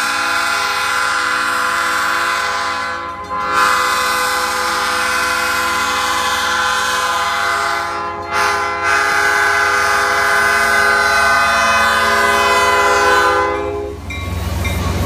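Diesel locomotive horn of a Maine Eastern Railroad train sounding for a level crossing: three long, loud blasts with short breaks between them. The horn cuts off near the end, leaving the low rumble of the passing locomotive.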